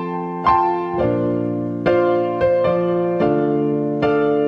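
Piano or electric-piano backing track playing an instrumental break, a new chord struck every half second to a second and left to ring, with no singing.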